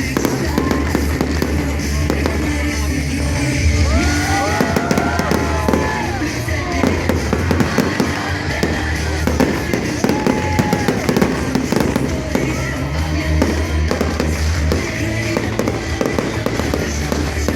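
Fireworks display: many bangs and crackles over loud music with a steady bass line. A few short tones glide up and down about four to six seconds in and again near ten seconds.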